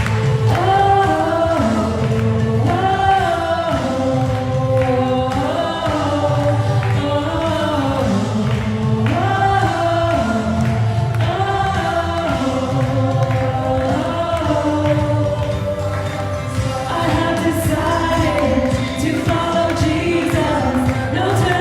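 Worship music: a group of voices singing a slow, sustained melody over instrumental backing with a steady bass.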